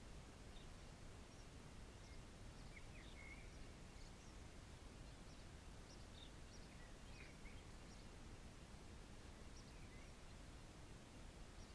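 Near silence: faint outdoor ambience under a steady low background noise, with a few faint, scattered high bird chirps.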